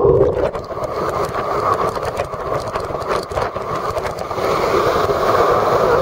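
A waterfall pouring into its churning plunge pool at close range: a loud, dense, steady rush of falling and frothing water with many small splashes through it.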